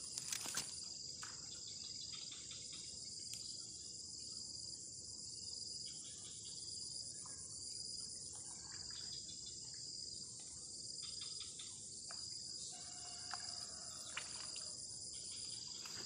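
Steady high-pitched insect chorus, with a second call pulsing about once a second, and a few faint clicks and knocks, the clearest just after the start, as the catfish is handled at the water's edge.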